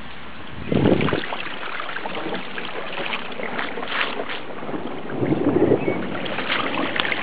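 Wind buffeting the camera's microphone over a steady rushing hiss, with heavy gusts hitting about a second in and again around five and a half seconds.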